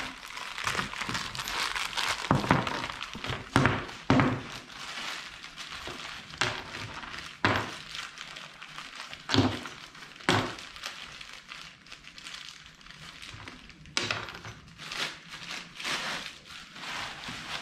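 Packaging rustling and crinkling as parts are taken out of a box, with about eight sharp knocks of parts being handled and set down.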